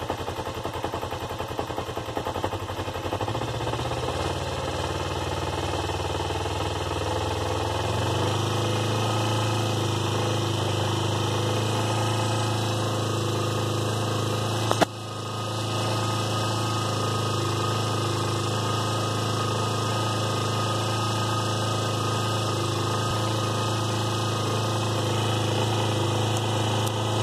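2004 Kawasaki Ninja 250's parallel-twin engine running at a high idle, its speed stepping up a little about 3 seconds in and again about 8 seconds in, then holding steady. The owner hears a knock at idle and is unsure whether it is normal for these bikes. A single sharp click about halfway through is the loudest sound.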